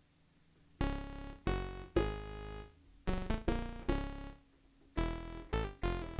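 Nunomo Qun mk2 synthesizer playing a run of about nine short notes that begin under a second in. Each note starts sharply and decays, with oscillator 1 and oscillator 2 mixed about half and half.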